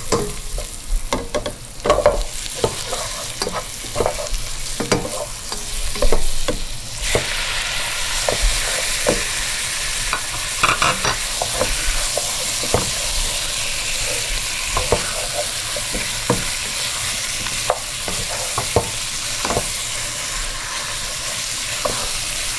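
Chunks of raw stew meat knocked from a plate into a pot of onions frying in oil, then a steady sizzle from about seven seconds in as the meat sears. A wooden spatula scrapes and knocks against the pot as it is stirred.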